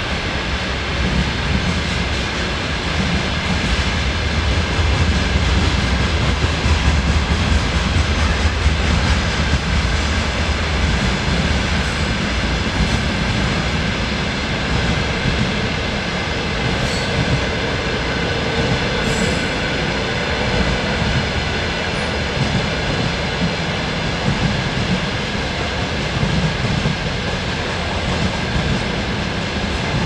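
Container freight train wagons rolling past at speed: a steady, continuous noise of wheels running on the rails.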